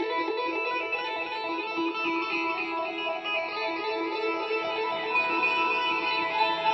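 Background music: a solo guitar playing sustained notes, with no drums or bass.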